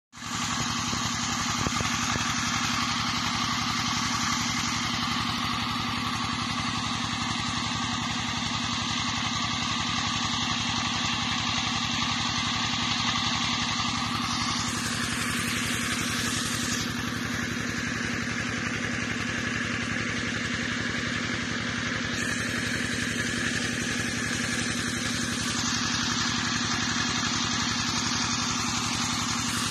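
Engine-driven irrigation water pump running steadily: an even engine drone with water gushing hard from the discharge pipe in a continuous rushing hiss.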